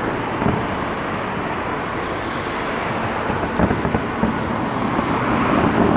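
A JR Joban Line train running past, with a steady rumble, while a few fireworks shells boom.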